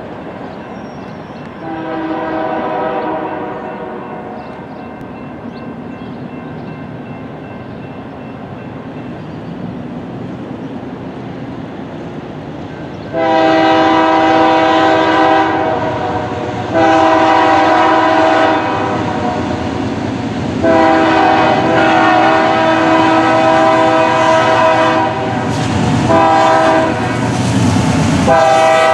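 Chime air horn of a Union Pacific C44-9W (Dash 9) diesel locomotive, several tones sounding together: one fainter blast about two seconds in, then from about halfway through a loud grade-crossing sequence of long blasts, a short one and a final long one. The approaching locomotive's engine and wheels grow louder near the end.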